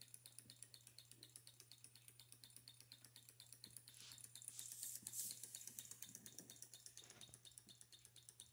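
Small hot-air Stirling beam engine running at speed, its moving parts clicking lightly and evenly at about eight ticks a second over a low steady hum. A brief rush of hiss rises and fades about four to five seconds in.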